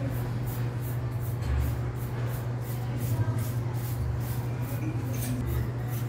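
Toothbrush scrubbing the thin metal fins of a portable air conditioner's coil, which is clogged with thick dust, in quick scratchy strokes about three a second, over a steady low hum.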